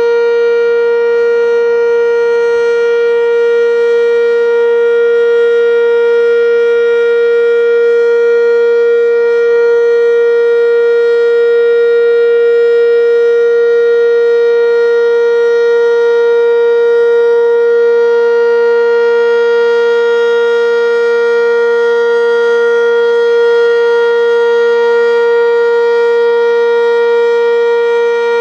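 Sentry 10V outdoor warning siren sounding one loud, steady tone held at a constant pitch, with no rise or fall.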